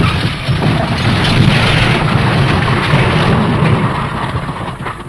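The 'Elephant Smash' crash sound effect: a loud, deep, noisy crash that starts suddenly and holds for about four seconds, then thins out into scattered crackles and clatters as it fades near the end.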